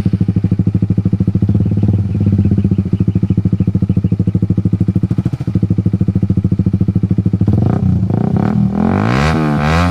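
Suzuki Raider 150's single-cylinder four-stroke engine through an open-pipe exhaust, idling with a loud, fast, even pulse. From about eight seconds in it is revved up and down several times.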